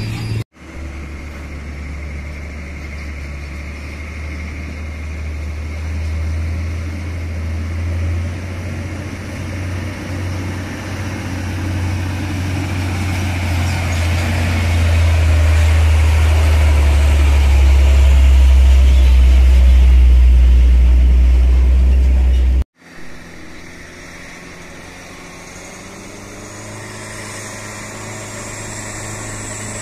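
Hino tanker truck's diesel engine pulling up a steep climb, a deep drone that grows louder as the truck comes close. It cuts off suddenly about three-quarters of the way through, leaving a quieter engine hum from trucks further off.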